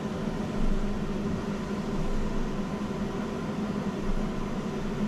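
Steady mechanical hum with a constant low tone over a even hiss, like a fan or air-conditioning unit running.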